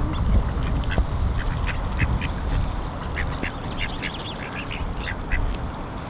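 Mallard ducks quacking in many short, repeated calls over a low rumble.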